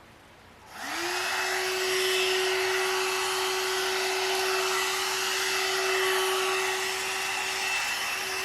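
One-step hair dryer and styler switched on about a second in: its motor spins up with a short rising whine, then runs with a steady hum and a rush of air. It is noisy.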